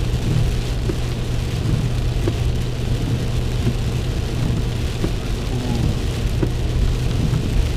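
Heavy rain pattering on a car, heard from inside the cabin, with many small drop ticks over the steady low hum of the car driving.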